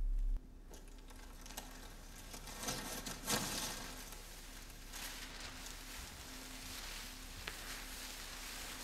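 Newspaper being crumpled and rustled in the hands: an irregular crackling patter with louder swells and a few sharp crackles. A low hum cuts off abruptly just after the start.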